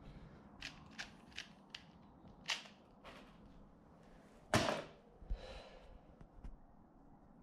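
Scattered sharp clicks and knocks of a Rubik's cube being handled and set down into place, with one louder knock about four and a half seconds in.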